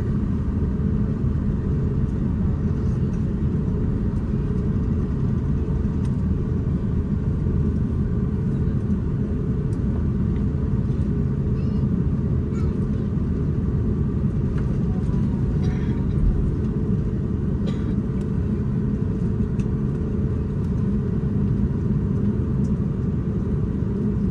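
Steady low rumble inside the cabin of an Airbus A350-941 rolling on the ground after landing, with a few faint clicks.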